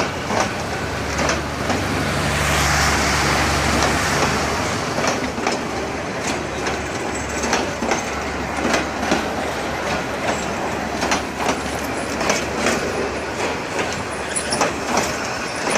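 Intercity passenger train's coaches rolling past a station platform, the wheels clacking over rail joints in an uneven run of sharp clicks over a steady rumble. It grows louder, with a low hum, about two to four seconds in.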